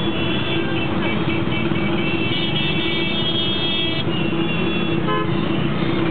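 Jammed street traffic of auto-rickshaws, motorbikes and cycle rickshaws: a steady din of engines, with horns honking again and again, including a short horn blast about five seconds in.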